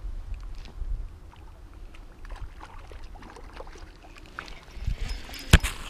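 Light spinning rod and reel being handled: faint small clicks and rustling over a low rumble, then one sharp knock about five and a half seconds in.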